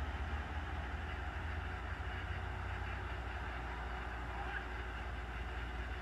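Steady, distant engine rumble from vehicles at the scene, with a low rumble picked up by a phone's microphone.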